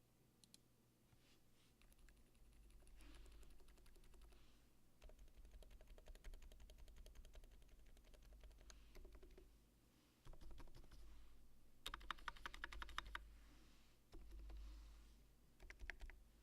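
Faint typing on a TINA-C mechanical keyboard with lubed silent switches (Cherry MX Silent Black stems in Zealio housings, 78 g) and GMK 9009 keycaps: soft, muted key taps in runs, with the fastest flurry of keystrokes about twelve seconds in.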